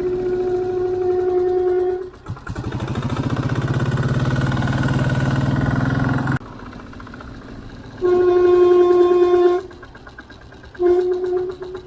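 Rear-wheel drum brake squealing under braking: a steady, high-pitched squeal for about two seconds, then two shorter squeals near the end, with the engine pulling away in between. The squeal persists even though the drum has been taken apart and cleaned and the linings are not glazed.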